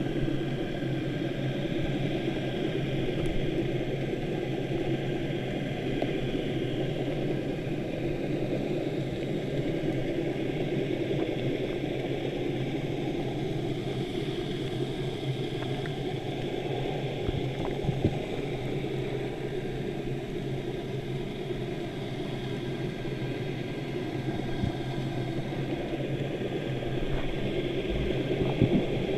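Steady muffled underwater rush with a low hum, as heard through an underwater camera housing, with a faint knock about two-thirds of the way in and another near the end.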